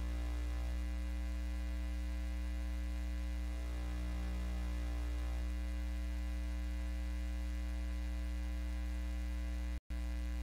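Steady electrical mains hum with its overtones on the sound-system audio feed, cutting out for an instant near the end.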